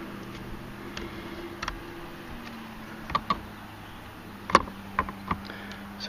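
Light clicks and taps of a Mercedes R129's front hydraulic latch cylinder, its line and clips being handled and fitted back into place. A handful of scattered clicks, the sharpest about four and a half seconds in, over a faint steady hum.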